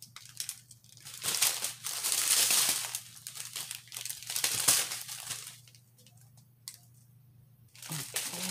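Small clear plastic bags of diamond-painting drills crinkling as they are handled and laid out, in irregular bursts with a quieter gap a little before the end.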